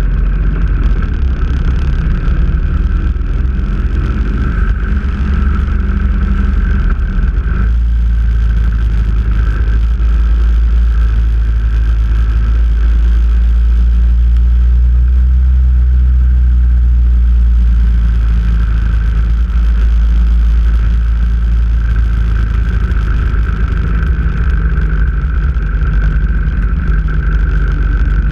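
Motorcycle engine running as the bike rides along a road, steady throughout, the note held most even through the middle.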